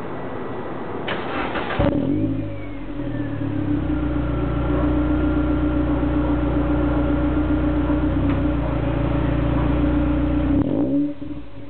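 Mitsubishi Lancer EX GT's engine heard at the tailpipe of an HKS Hi-Power aftermarket exhaust. It is brought up to a raised engine speed about two seconds in and held there steadily for several seconds, then drops back near the end.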